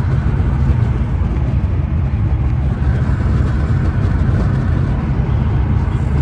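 Steady low road rumble inside a moving car's cabin: tyre and engine noise while driving.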